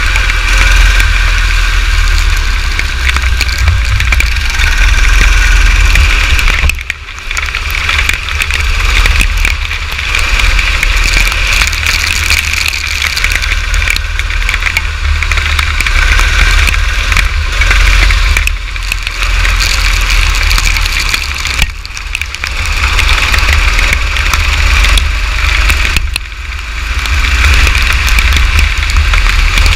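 Kart engine running hard on track, easing off briefly several times during the lap, under a heavy low rumble of wind and rain noise on the onboard camera's microphone.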